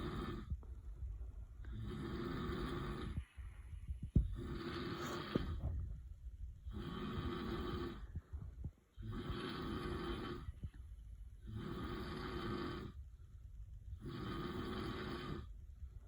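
A man snoring in sleep, one pitched snore roughly every two and a half seconds in a steady rhythm. There is a single sharp knock about four seconds in.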